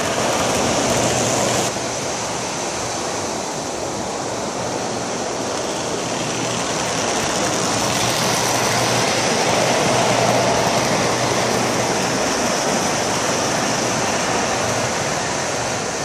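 O gauge model trains rolling on their track: a steady rumble of wheels on rail, swelling slightly as a model locomotive and tender pass close by around the middle.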